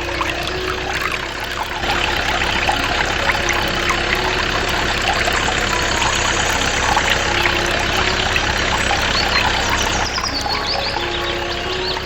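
Water pouring and trickling steadily, heavier from about two seconds in until near the end, over a low steady hum.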